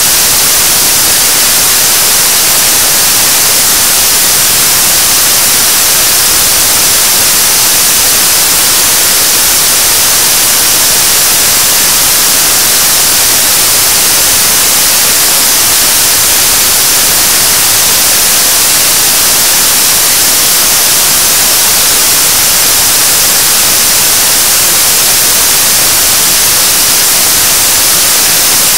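A 7-ton-class liquid-propellant rocket engine for the KSLV-II Nuri third stage firing at steady thrust in a long-duration hot-fire test. The exhaust makes a loud, unchanging rushing hiss.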